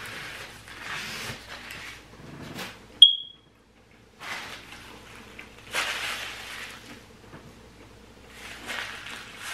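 Close-up chewing and mouth sounds of someone eating, in soft stretches. About three seconds in comes a single sharp clink with a brief ring, like a fork against a glass dish.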